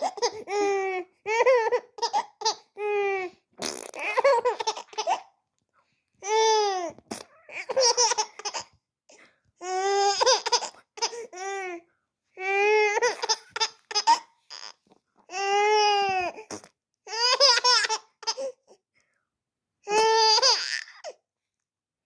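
Baby laughing in repeated bursts of about a second each, with short pauses between them, each burst rising and falling in pitch.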